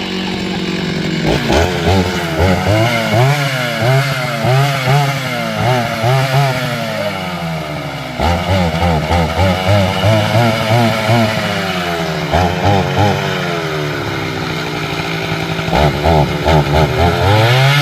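Chainsaw cutting firewood, its engine pitch rising and falling over and over as the chain loads up in the wood, with a pulsing beat about twice a second. It gets louder about eight seconds in.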